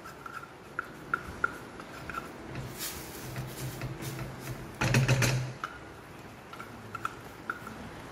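Metal spoon stirring and tapping in a stainless steel pan as rice rava is sprinkled into boiling water, giving scattered light clicks, with a louder clatter about five seconds in.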